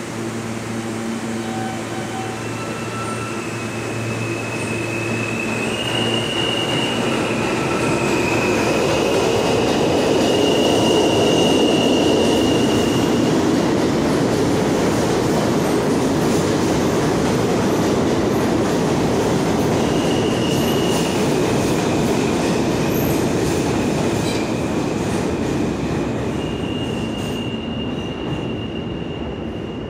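R160 subway train pulling out of the station: a steady hum at first, then a rumble of wheels on rail that builds to its loudest about twelve seconds in and fades as the train pulls away. High drawn-out wheel squeals come and go as it rounds the curve.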